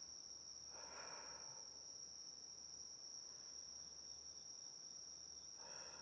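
Insects calling steadily on one unbroken high note, faint, with two soft short sounds, about a second in and again near the end.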